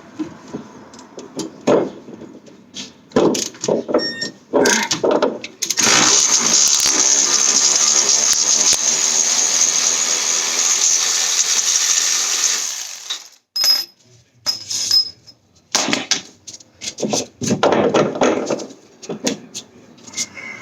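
Garage tool work on a car's suspension: metal clanks and knocks, then a loud power tool runs steadily for about seven seconds in the middle, followed by more clattering of tools and parts.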